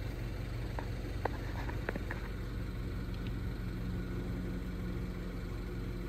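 Mini Cooper S R56's N18 1.6-litre turbocharged four-cylinder idling steadily, with a few faint clicks in the first two seconds. The engine has a misfire blamed on a failing coil pack, but at idle it barely shows.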